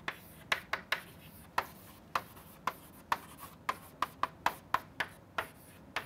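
Chalk writing on a blackboard: a run of short, sharp, irregular chalk taps, about three a second.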